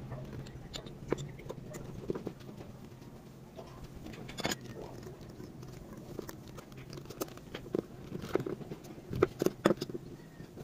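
Small clicks and taps of metal and rubber parts as a brake master cylinder repair kit (piston, springs, seals) is pushed into the cylinder body and seated. The clicks come more often and sharper near the end, as the pistons are pressed home with a tool.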